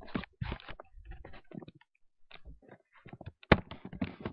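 Handling noise from a camera being carried and moved: irregular clicks, rustles and knocks, with one sharp bump about three and a half seconds in.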